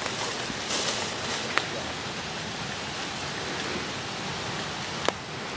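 Steady outdoor hiss, with two sharp clicks, one about a second and a half in and one near the end.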